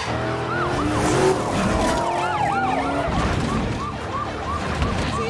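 Police car siren in a fast up-and-down yelp over the noise of speeding car engines, with one long siren tone sliding slowly down in the middle.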